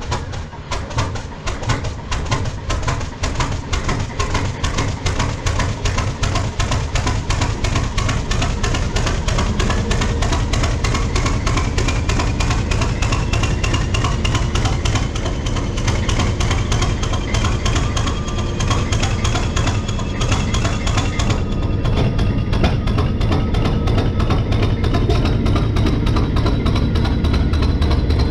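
Class 31 diesel locomotive's English Electric engine running just after a cold start, with a fast, even knocking beat that grows louder over the first ten seconds. A thin whine slowly rises in pitch through it.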